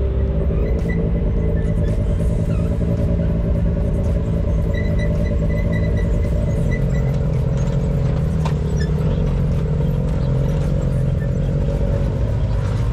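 Side-by-side UTV engine running steadily as it drives a dirt trail, its note dipping about two-thirds of the way through, with a few knocks from the rough ground.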